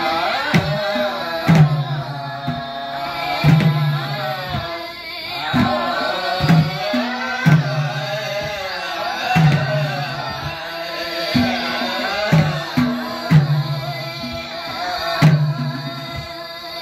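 Women singing a Gurung folk song together in wavering, ornamented lines, accompanied by a madal hand drum beating about one deep stroke a second with lighter taps between.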